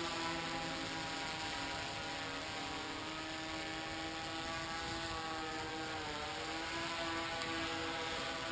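Hexacopter's electric motors and propellers whirring steadily in flight, several steady tones with the pitch dipping briefly about six seconds in.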